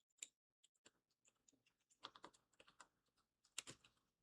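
Near silence broken by a few faint, sharp clicks and taps of small miniature-kit parts being handled and fitted together, the loudest pair near the end.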